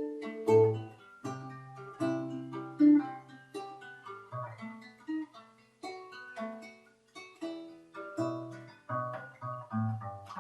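Guitar playing an instrumental melody: single plucked notes one after another over low bass notes, each ringing and fading.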